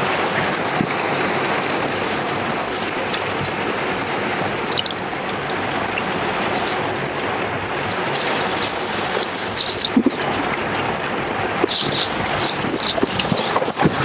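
Waterfall and its stream rushing, a steady even wash of water noise. A few light clicks and knocks come through near the end.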